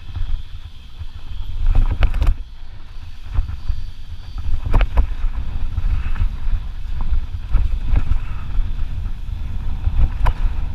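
Wind rumbling on a helmet-mounted camera's microphone as a mountain bike rolls down rocky, sandy singletrack, with sharp clattering knocks from the bike going over rocks every few seconds.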